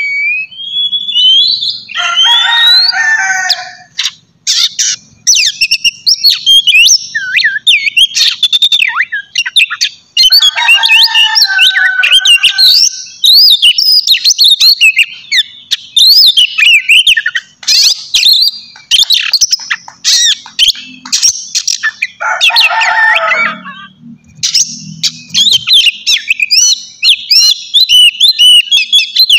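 Oriental magpie-robin singing a fast, varied song of sharp whistles and chirps. The song is broken three times by harsh rasping phrases.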